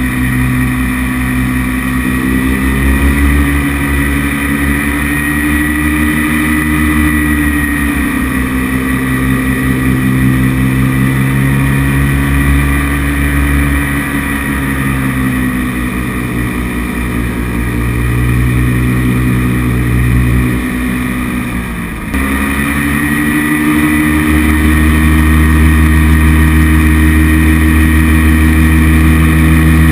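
Paramotor engine and propeller running in flight, its pitch drifting slowly up and down. A little past two-thirds through, the throttle is briefly eased off, the pitch dropping sharply, then opened again to a louder, steady run.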